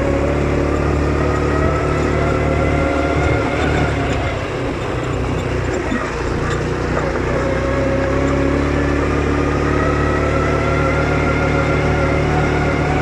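ATV (quad bike) engine running under way, its pitch climbing steadily as it accelerates, falling back about five seconds in, then climbing again.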